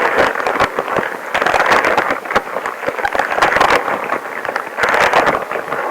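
Long rubber gloves rubbing against each other close to the microphone: a dense crackling rub full of small clicks that swells and eases.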